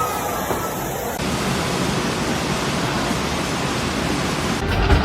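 Steady rush of fast-flowing floodwater. A louder low rumble comes in near the end.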